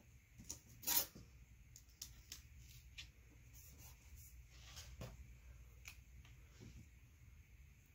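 Washi tape being pulled from its roll and pressed onto a paper planner page: a short tearing sound about a second in, then faint scattered clicks and rustles of tape and paper being handled.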